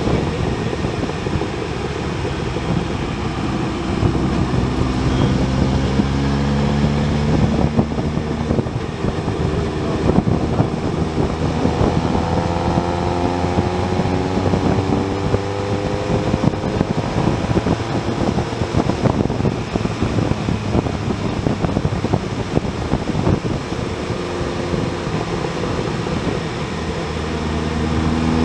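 Motorcycle engine running at road speed, heard with wind rushing over the microphone. The engine pitch shifts up and down several times, with a steady rise in pitch after about twelve seconds as it picks up revs.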